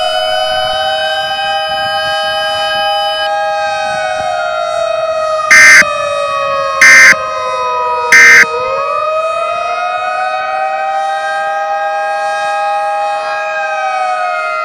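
Civil defense siren wailing on two pitches, slowly rising, holding and falling twice. About halfway through it is broken by three short, very loud data bursts: the EAS end-of-message tones.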